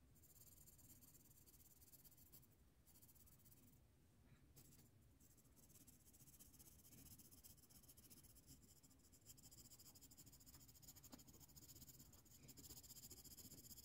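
Faint scratching of a coloured pencil shading on paper in quick, repeated strokes, a little louder near the end.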